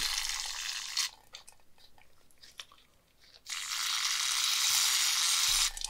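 Aerosol brake cleaner sprayed through a straw into a dirty ball bearing to flush out old grease: a hissing burst about a second long, a pause with a few faint clicks, then a longer hissing burst from about three and a half seconds in.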